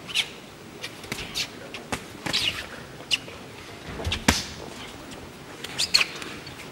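Boxing-ring sounds: boxers' shoes squeaking and scuffing on the canvas, with sharp thuds of punches, the loudest about four seconds in, over steady arena crowd noise.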